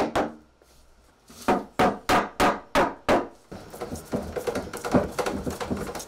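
Wooden mallet tapping floating tenons into mortises in an ash slab: about six sharp knocks in quick succession, starting about a second and a half in. After that comes a denser run of lighter knocks and clicks.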